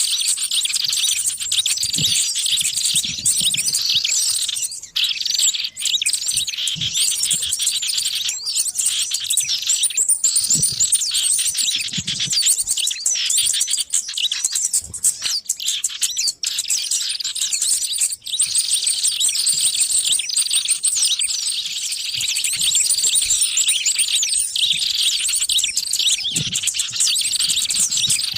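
Dense, busy chorus of many small birds chirping and twittering over one another without a break, all high-pitched. It is a small-bird lure recording (suara pikat), made to draw small wild birds in.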